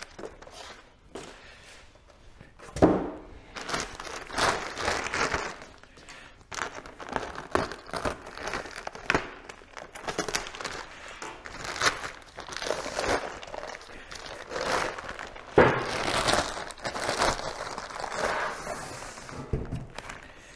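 Plastic bag and waxed paper crinkling and rustling in irregular bursts as a new machine vise is unwrapped by hand. Two sharp thuds stand out, one a few seconds in and one past the middle.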